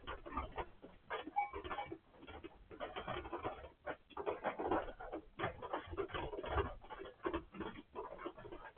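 Sheep coughing deeply in short bursts, over and over, which the owner puts down to a cold caught in the rain.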